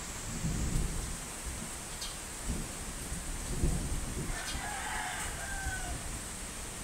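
Steady rain with low rolling rumbles of thunder, and a rooster crowing once about four and a half seconds in.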